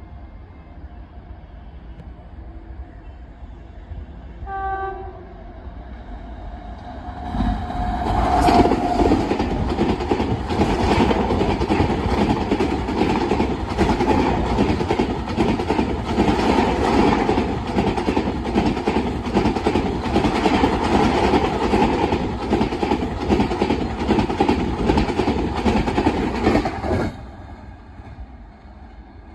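Indian Railways superfast express train. A short horn blast sounds about five seconds in, and the horn sounds again as the train arrives at full speed. Then comes a long, loud, rapid clatter of wheels over rail joints that stops abruptly near the end as the train clears.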